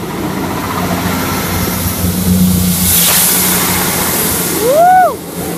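A South West Trains Class 444 electric multiple unit runs close past the platform, its rushing noise building to a peak about three seconds in, over a steady low hum. Near the end a child shouts "Woo!".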